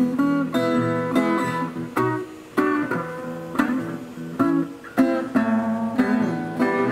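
Resonator guitar being fingerpicked: a steady run of plucked notes and chords.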